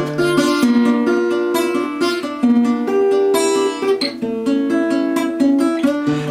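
Acoustic guitar fingerpicked solo, playing a steady arpeggio pattern of picked notes over sustained chord tones, with a low bass note ringing at the start and again near the end.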